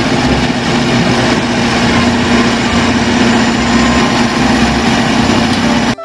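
Large crawler bulldozer's diesel engine running steadily with a constant droning hum, cutting off suddenly at the end.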